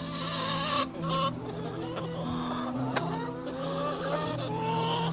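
A flock of hungry backyard hens clucking and calling, with drawn-out, wavering calls overlapping one another.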